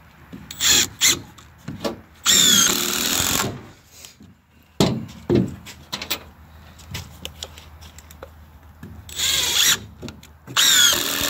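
Cordless drill driving screws into 2x4 lumber in three runs of about a second each, with wooden knocks of boards being handled in between.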